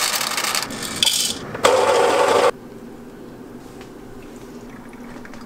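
Whole coffee beans poured from a bag into a plastic container, rattling, then a louder rushing burst of about a second that stops abruptly. A quieter steady hiss follows from about two and a half seconds in.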